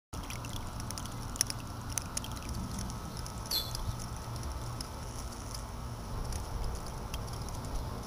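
A small solar-powered submersible fountain pump's jet of water splashing and pattering back into a bucket of water, with scattered sharp droplet ticks over a low rumble.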